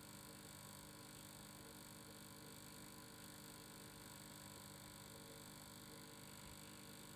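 Faint, steady hum made of several constant tones over a light hiss, unchanging throughout.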